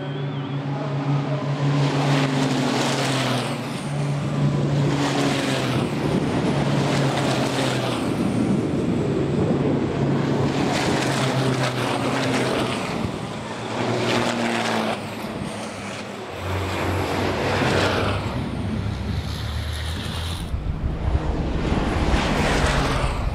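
Turbo-diesel racing trucks passing one after another at speed, each pass swelling and fading as a rush of engine and tyre noise, about every two seconds, over a steady low engine drone.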